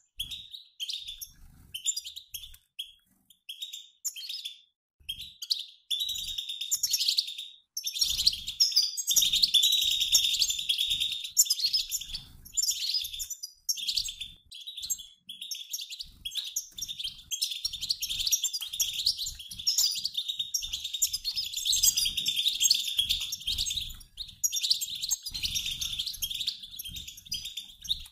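A mixed flock of European goldfinches, males and females, calling and twittering in chorus. The calls come as separate short notes for the first few seconds, then as dense, nearly unbroken chatter from about six seconds in.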